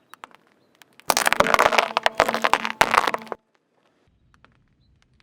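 Car tire rolling over crunchy objects and crushing them: a dense run of cracking and popping snaps for about two seconds, starting about a second in, after a few faint clicks.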